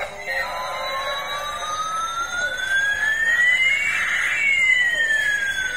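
Electronic siren sound effect from a battery-powered toy helicopter: one tone sliding slowly up for about four seconds, then starting back down.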